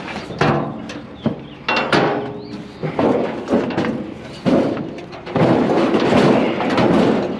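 A scrap grill being loaded onto a trailer of scrap metal: several sharp knocks and clanks in the first couple of seconds, then longer stretches of rattling and scraping as it is shifted into place.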